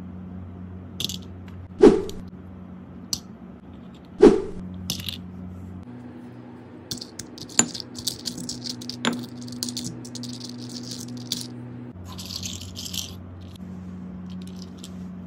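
Small plastic toy vehicles knocking and rattling in a granite mortar. Two heavy thuds come in the first few seconds, then a run of light plastic clicks and rattles as a granite pestle presses on the toys. A short scraping rattle follows as they are scooped up by hand, over a steady low hum.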